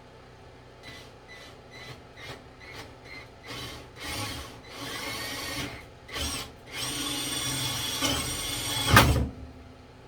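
Power drill with an Irwin bit boring a hole for a dowel rod: a series of short trigger bursts, then longer runs with the motor's whine climbing in pitch, ending in a loud knock just after nine seconds.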